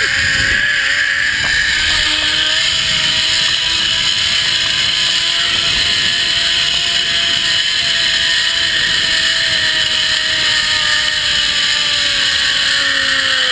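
Zip line trolley pulleys running along the steel cable with a steady whine, over wind rushing on the microphone. The whine's pitch sinks gradually in the last few seconds as the rider slows toward the landing platform.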